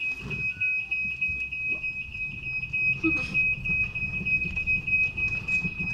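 A steady, high-pitched electronic warning beep from a small electric cart switches on suddenly and sounds without a break, over the low rumble and rattle of the cart rolling over stone paving.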